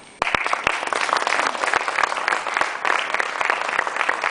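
Audience applause that breaks out suddenly a moment in and goes on steadily as dense clapping.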